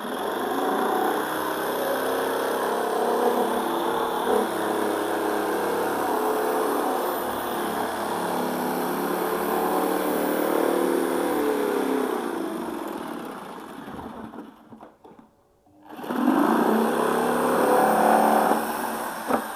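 Electric drill running under load with a steady whine. It winds down and stops about two-thirds of the way through, then spins back up with a rising pitch for a second run.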